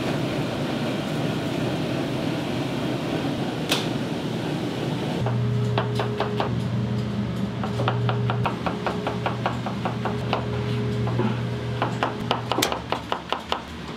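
Kitchen work: a fast run of hard knocks, about four a second, over a steady motor hum that starts with them about five seconds in, after a stretch of steady kitchen noise. The last few knocks, near the end, are the loudest.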